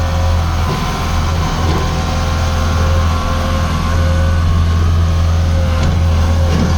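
Bobcat S650 skid steer loader's diesel engine running steadily, with a steady whine above the engine note. It gets slightly louder about four seconds in.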